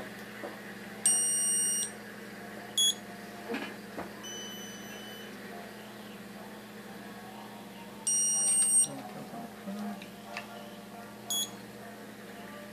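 Dental LED curing light beeping its timed curing cycle while it sets the bonding cement under a Maryland bridge: a long beep about a second in, a short higher beep soon after, then another long beep about eight seconds in and a short one near the end. A steady low hum runs underneath.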